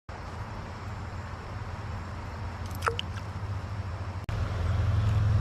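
A motor running with a steady low hum. A short falling whistle comes about three seconds in, and the sound cuts out for an instant just past four seconds before going on louder.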